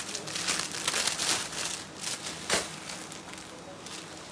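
Clear plastic garment bag crinkling and rustling in irregular bursts as clothes are handled, quieter over the last second or so.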